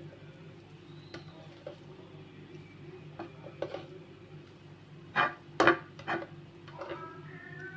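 Cookware and utensils clinking and knocking now and then, with three louder knocks about five seconds in, while sausage is being added to a tray of vegetables and potatoes. Background music comes in near the end.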